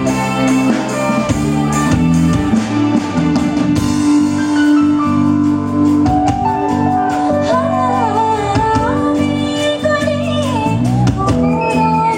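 Live stage band playing with drums and sustained instrument chords, and a singer's voice coming in about halfway through.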